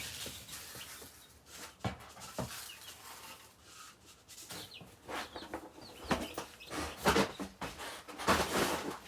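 Baby chicks peeping in short, high chirps, with a few sharp taps among them.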